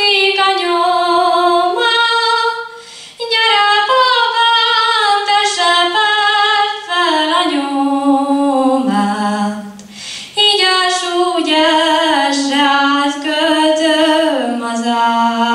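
A girl singing a Hungarian folk song solo and unaccompanied into a microphone, holding long notes and sliding between them. The singing breaks briefly for a breath about three seconds in and again about ten seconds in.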